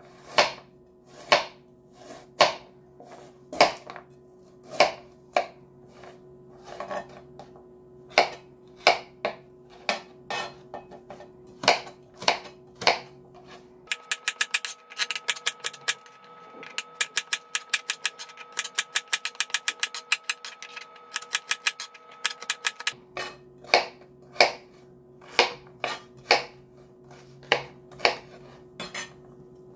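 Chef's knife cutting raw carrots on a plastic cutting board: slow, separate strokes knocking on the board as rounds are sliced. About halfway through comes several seconds of rapid chopping, four or five strikes a second, then slower strokes again.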